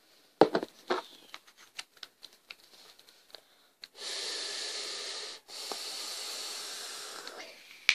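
A few sharp clicks and handling knocks, then a long draw on an e-cigarette: air hissing steadily through the heated atomizer for about three and a half seconds, broken once by a short pause.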